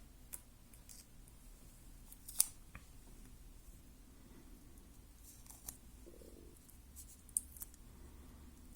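Electrical tape being cut and handled: faint, scattered snips and clicks, the sharpest about two and a half seconds in.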